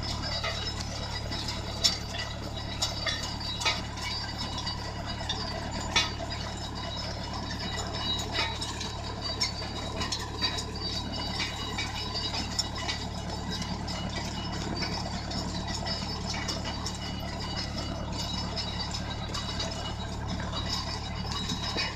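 Mahindra Novo tractor's diesel engine running steadily under light load while it pulls a mulch-film laying machine, with the implement's metal parts rattling and giving off irregular clinks and clicks, one sharp clank about two seconds in and another about six seconds in.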